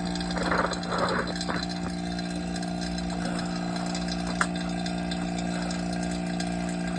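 Vacuum pump running with a steady hum while it pulls a vacuum on the chamber. Light handling noises in the first second or two and a single click near the middle as the wiring is tugged and checked.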